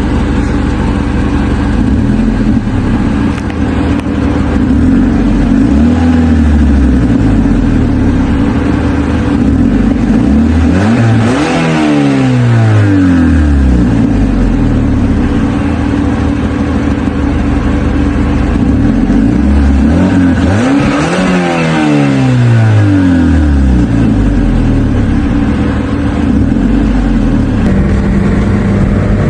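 Mazda 3 engine with an exhaust leak, idling, then revved and allowed to fall back: a small blip about five seconds in, then two big revs about eleven and twenty-one seconds in.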